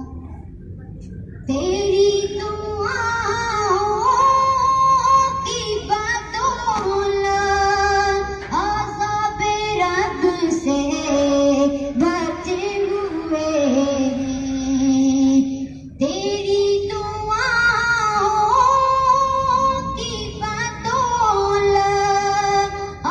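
A female voice singing a naat (devotional poem in praise of the Prophet) in long, held melodic phrases, starting about a second and a half in, with a brief break about two-thirds of the way through.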